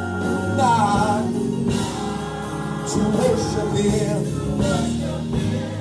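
Live gospel song: a church choir singing with instrumental backing, sustained low notes under bending vocal lines.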